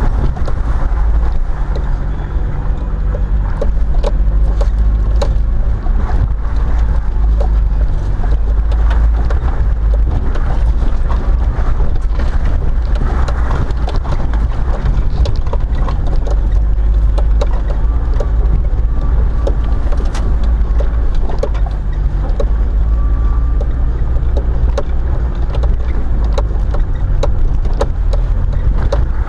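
Heard from inside the cabin, a vehicle drives slowly over a rough dirt track. The engine and tyres make a steady low rumble, with frequent knocks and rattles as the vehicle jolts over the bumps and ruts.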